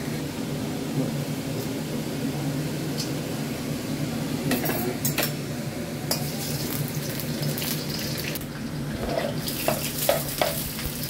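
Bay leaves and whole spices sizzling in hot oil in a steel kadai over a steady low hum. A metal spatula clinks against the pan a few times around five to six seconds in. Near the end come several knocks as chopped green chillies are tipped in from a cutting board, and the sizzle grows louder.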